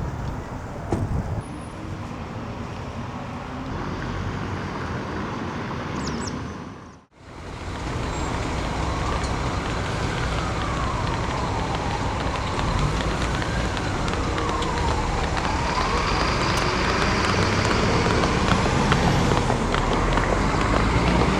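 City street traffic: a steady wash of passing cars and engines. It drops out briefly at a cut about a third of the way in. After the cut, a distant emergency-vehicle siren wails slowly up and down over the traffic for several seconds.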